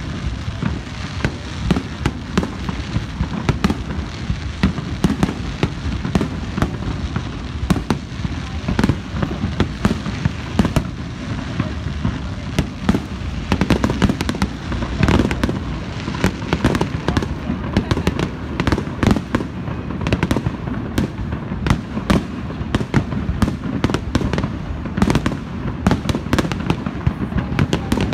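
Aerial fireworks display: many shells bursting one after another, with overlapping sharp bangs, deep booms and crackle from the bursts.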